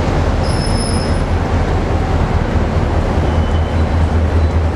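EMD diesel locomotive engine running out of sight, a loud steady low rumble with a slight pulse. A brief thin high squeal sounds about half a second in.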